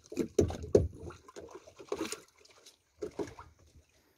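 Water slapping and sloshing against the hull of a small fibreglass boat in irregular bursts, with a few sharp knocks.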